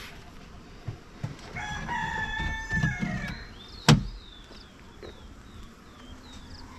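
A rooster crows once, a long drawn-out call of about two seconds. Just after it comes a single sharp knock, the loudest sound, then a run of short high chirps.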